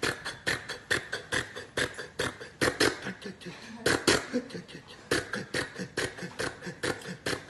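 A man imitating a two-cylinder tractor engine with his mouth: a steady run of puttering pops at about four to five a second, like the engine running.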